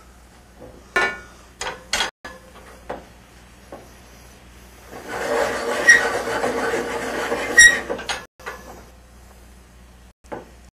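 A spice mill grinding seasoning, a rasping crunch lasting about three seconds with a couple of clicks in it, after a few light knocks near the start.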